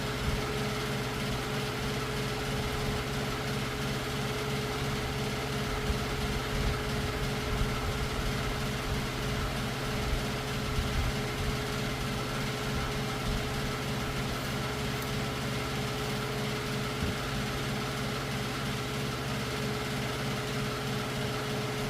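A steady motor hum running evenly throughout, with a few faint clicks from small parts being handled.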